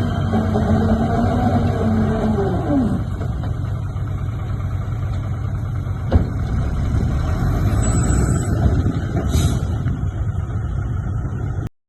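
Komatsu D58P bulldozer's diesel engine running under load, its pitch dropping as it eases off about three seconds in. There is a single sharp clank about halfway through, and the sound cuts off abruptly near the end.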